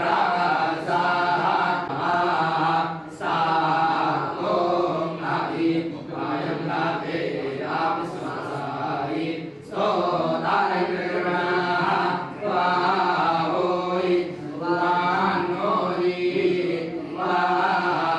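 Group of men reciting a Vedic chant together in a steady monotone recitation, breaking off briefly every few seconds between phrases.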